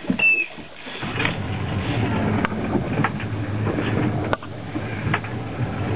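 Motorboat engine running while under way. It gets louder about a second in, and a few sharp knocks sound over it.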